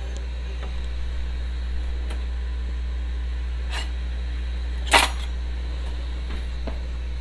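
A steady low hum throughout, with a few light knocks of a kitchen knife and vegetables on a wooden cutting board, the loudest a sharp knock about five seconds in.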